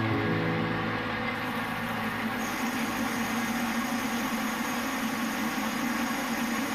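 Colchester Bantam metal lathe running steadily, its motor and headstock gearing turning the chuck and a bar at a constant speed.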